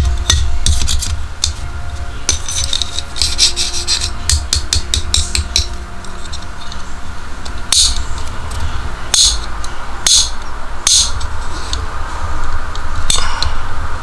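Nextool Huohou metal multitool being handled: a run of light metallic clicks and rattles for the first several seconds, then single sharp clicks about a second or more apart, over a low rumble.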